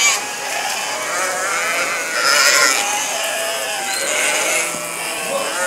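A large flock of sheep bleating, many calls overlapping without a break, loudest a couple of seconds in.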